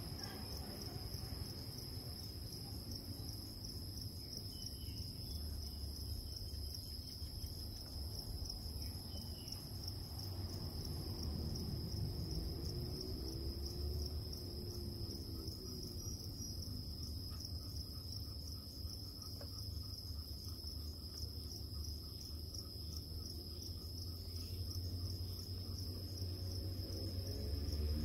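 Crickets chirping as a continuous high trill, over a steady low rumble.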